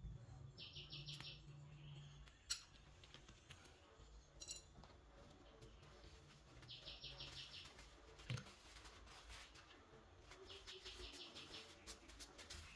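Faint tabletop handwork: a few sharp clicks of long-nose pliers on metal, the loudest about two and a half seconds in. In the background a bird chirps rapidly in three short bursts of about a second each.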